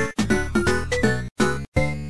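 Upbeat, bouncy background music made of short, clipped notes over a steady beat, broken by brief silent gaps.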